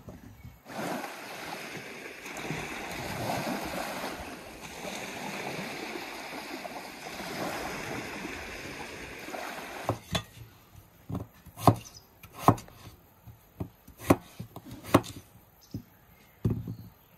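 Small waves washing onto a shore in a steady rush. About ten seconds in this gives way to a knife cutting vegetables on a wooden cutting board in sharp, irregular taps.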